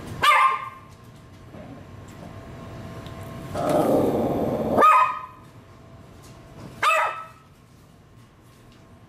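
Senior blind Maltese barking: three short barks, one just after the start, one about five seconds in and one about seven seconds in, with a rough, noisy sound for about a second before the second bark. The captions call it distress that comes from a neurological disorder.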